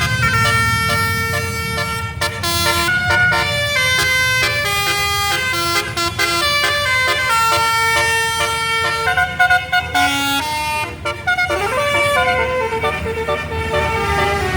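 Bus 'telolet' basuri multi-tone horn playing a rapid tune of changing notes, over the low running of the bus engine.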